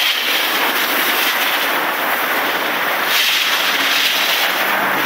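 Garden hose spraying water, a steady loud rushing hiss.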